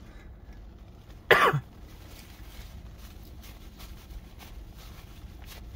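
A man coughs once, a single short loud cough about a second and a half in. Faint clicks and rustling follow.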